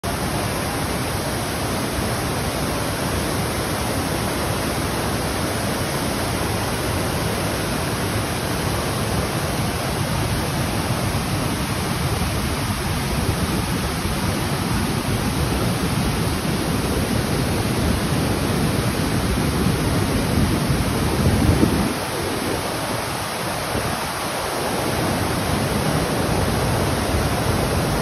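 Cascading waterfall: white water rushing steadily over rock ledges. A little after two-thirds of the way through, the deepest part of the rush drops away and the sound briefly gets quieter, then returns.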